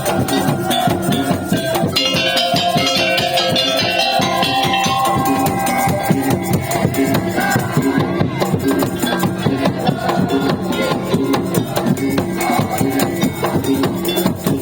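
Madurese tong-tong ensemble playing: loud, dense, fast drumming and wooden percussion under a sustained melodic line.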